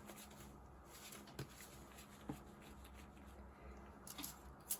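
Faint steady low hum with a few soft clicks and taps from a gel polish bottle and brush being handled.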